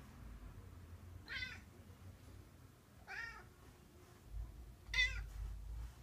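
Male Bengal cat giving three short, wavering cries about two seconds apart. It is the odd cry he makes at any touch when he is sexually aroused.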